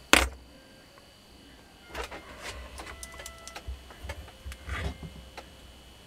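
A sharp knock of a hand tool on the workbench, then a run of small irregular clicks and scrapes as the small metal armature and tools are handled.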